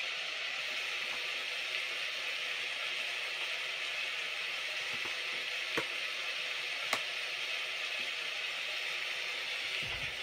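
Steady rain falling, an even hiss with no let-up, with two faint clicks a little past halfway.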